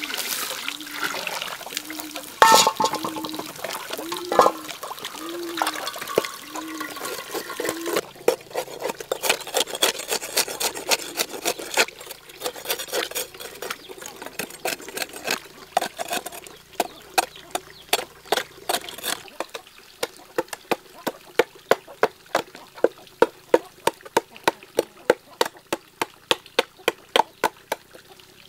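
Water poured into a charred, smoking hollow in a tree stump, then a hand tool scraping and striking the burnt wood inside it as the hollow is cut out into a rice mortar. Near the end the blows grow louder and regular, about two to three a second.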